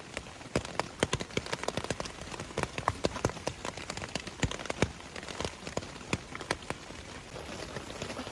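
Rain falling, with large drops landing in sharp, irregular ticks, several a second, over a light steady hiss; the ticks thin out near the end.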